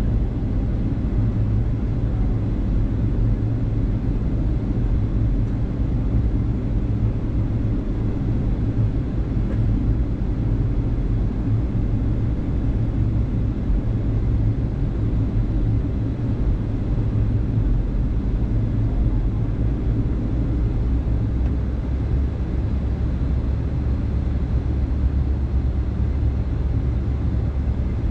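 Steady low rumble of a Boeing 757-200 in flight, its engines and airflow heard as an even drone. The deepest part of the hum grows a little stronger about two-thirds of the way through.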